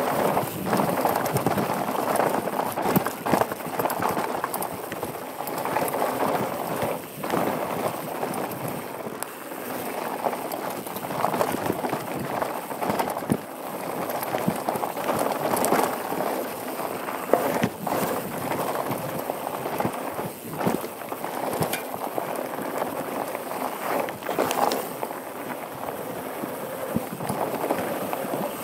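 Downhill mountain bike ridden fast over a rocky dirt and gravel trail, heard from a helmet-mounted GoPro: a continuous rush of tyre noise on loose ground, broken by frequent irregular clicks and knocks as the bike rattles over stones.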